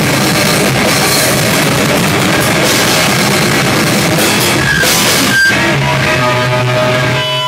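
Live rock band playing loud and fast, with drum kit and guitars. About five and a half seconds in, the full band stops on a hit and held notes ring on.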